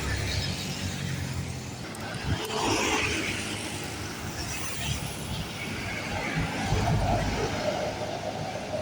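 Large diesel buses running at low speed, with a burst of hiss about three seconds in. A steady horn tone begins near the end.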